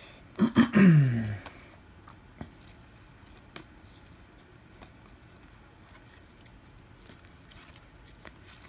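Trading cards being handled and leafed through, faint soft clicks and rustles scattered through. Near the start, a loud brief vocal sound that falls in pitch.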